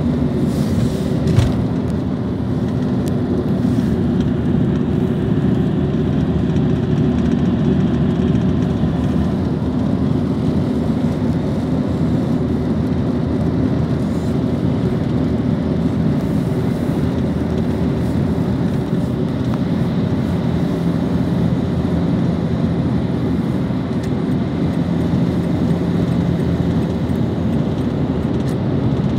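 A car driving at motorway speed, heard from inside the cabin: a steady drone of engine and road noise. A single brief knock sounds about a second and a half in.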